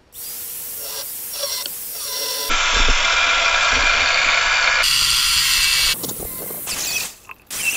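Angle grinder with a cutoff wheel cutting through an old steel propeller-shaft coupler, a high grinding hiss. It gets louder about two and a half seconds in, eases off about six seconds in, and stops and starts near the end.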